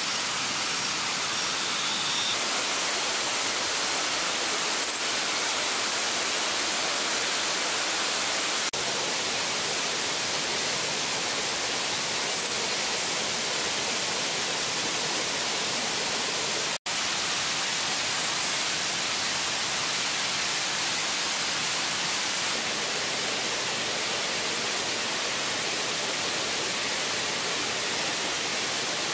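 Steady, even hiss of falling water, cutting out briefly once near the middle.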